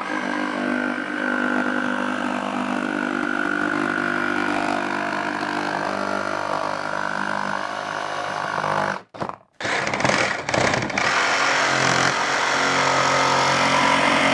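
DeWalt cordless jigsaw cutting through a plastic toilet seat lid, its blade running steadily. It stops briefly about nine seconds in, starts again in a few short spurts, then runs steadily once more.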